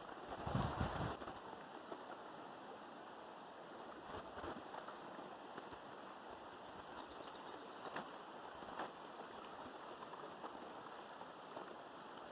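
River water flowing steadily, an even rushing, with wind buffeting the microphone for about the first second.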